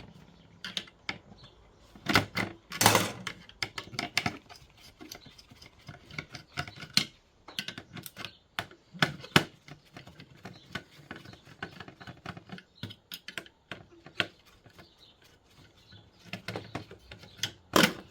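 Irregular clicks, taps and light clatter of small metal and plastic parts being handled as a computer unit is taken apart by hand, with a few louder knocks.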